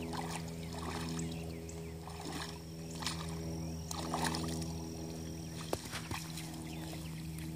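A steady low mechanical hum, like a motor running, with a few short clicks and soft rustles over it.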